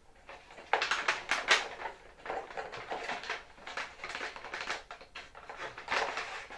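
Hands handling a model airplane wing covered in clear plastic MonoKote film: a quick, irregular run of crinkles, taps and rustles, starting under a second in.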